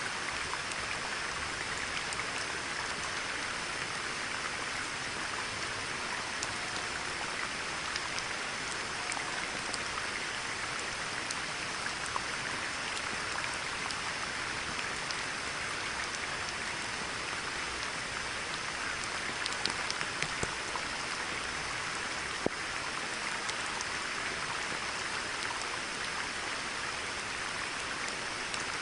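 Steady rain falling on a pond: an even patter with scattered single drops ticking louder, a few of them bunched together about two-thirds of the way through.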